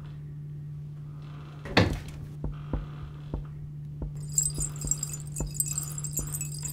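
A steady low hum, with a sharp knock about two seconds in, then scattered light clicks and, from about four seconds in, a high metallic jingling.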